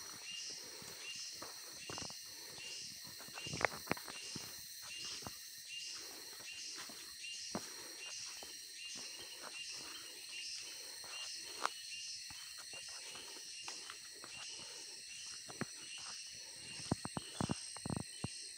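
Rainforest insects keep up a steady high chorus with a pulsing call about one and a half times a second. Footsteps crunch on the leaf-littered forest floor throughout, with a quick run of louder steps near the end.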